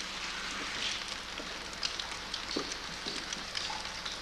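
Steady hissing spray with a patter of droplets: spray nozzles misting the Vasa's wooden hull with conservation solution.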